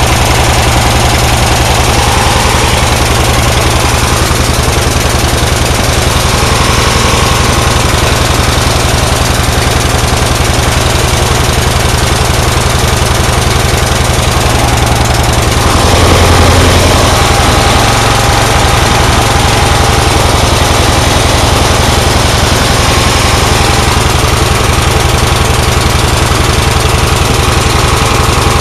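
Tecumseh small engine on a Yardworks go-kart running steadily, with a brief louder surge about sixteen seconds in.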